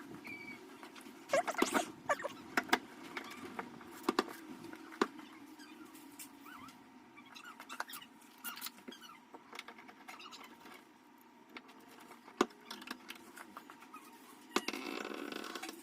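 Door lock parts and hardware being handled during installation: scattered light clicks, taps and knocks, with a longer scraping rustle near the end.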